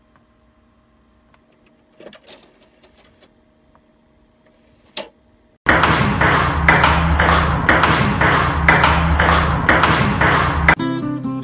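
A faint steady hum with a few soft clicks, then a sudden loud, fast rhythmic beat of about three strokes a second over a steady low drone. The beat cuts off shortly before the end and gives way to guitar music.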